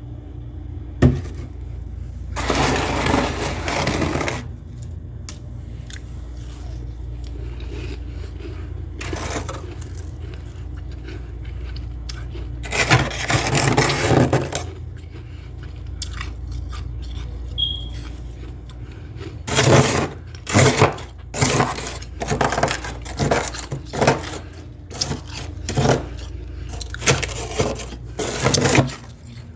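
Freezer frost being scraped loose and crunched, in long noisy strokes at first and then many short, quick bursts in the second half, over a steady low hum.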